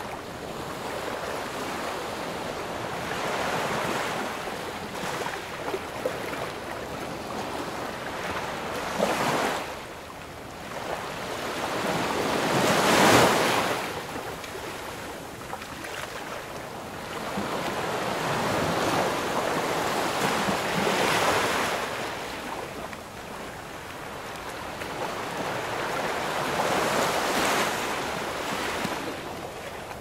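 Ocean waves breaking and washing in, the sound swelling and fading every few seconds; the biggest wave breaks about halfway through.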